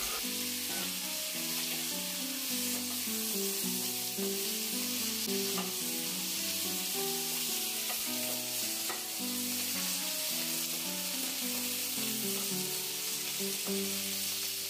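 Cut flat beans sizzling as they fry in oil in a non-stick kadai, turned now and then with a spatula, with a background music melody.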